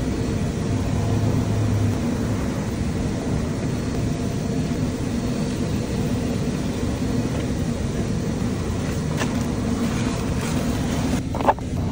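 A car running on the road: a steady engine hum under road noise. A short sharp click comes near the end.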